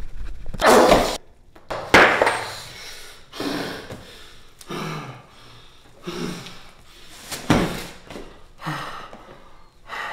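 A man's heavy, strained breaths and grunts, one about every second or so, as he struggles with his hands bound. A couple of sharp knocks, one about two seconds in and one later on, cut through the breathing.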